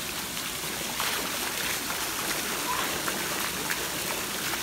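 Pool water splashing and sloshing as a child swims and kicks at the surface, over a steady wash of water noise.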